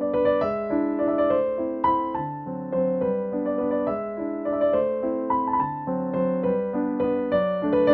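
Background piano music: a gentle melody over steady chords, with new notes every half second or so.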